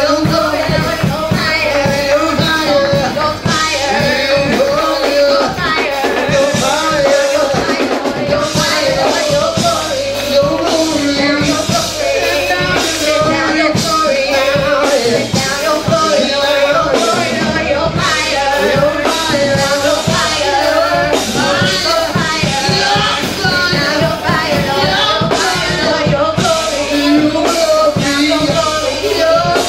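Gospel praise-and-worship music: a woman singing lead into a microphone over a band with a steady drum beat.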